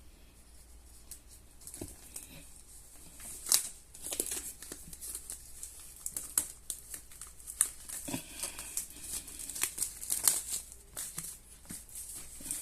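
Packaging being crinkled and torn open by hand, with irregular crackles and sharp clicks. The handling gets busier after about three and a half seconds.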